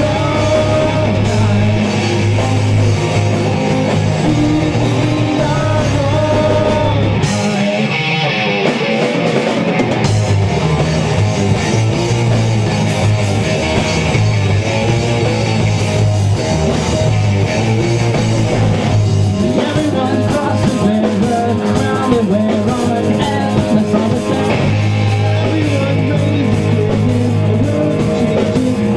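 Amateur pop-punk rock band playing live: distorted electric guitars through Marshall amps, electric bass and a drum kit, with a singer's voice over them. The bass and low end drop out briefly about seven seconds in, then the full band comes back.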